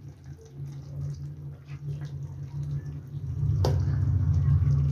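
Thin curry gravy simmering in a nonstick pan and being stirred with a plastic spatula, with soft bubbling and liquid sloshing, over a low steady rumble that gets louder about three seconds in. A sharp knock a little later as the spatula strikes the pan.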